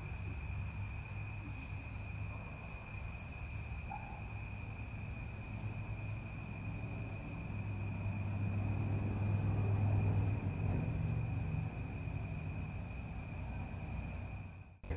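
A steady high-pitched whine with a fainter tone an octave above it, over a low hum that swells for a few seconds in the middle; both cut off abruptly just before the end.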